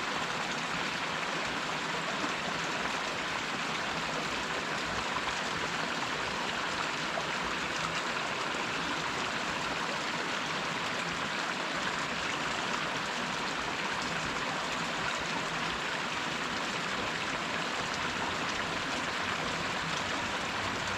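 A small waterfall running steadily, a constant rushing hiss of falling water.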